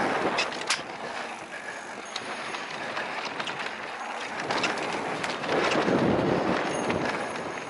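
Electric mountain bike riding fast down a dirt trail: wind buffeting the helmet-mounted microphone, swelling at the start and again about two-thirds of the way through, over tyre noise and scattered rattles and clicks from the bike.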